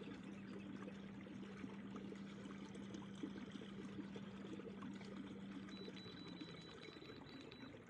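Water trickling and lapping against a kayak hull. A low steady hum runs underneath and stops about six seconds in.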